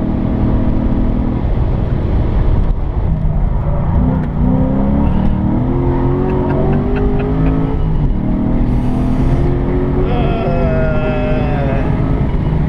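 HSV GTS V8 with an aftermarket cam, heard from inside the cabin under hard acceleration on a race track. The revs climb and fall back through gear changes, climbing steadily from about three seconds in until a drop near the eight-second mark.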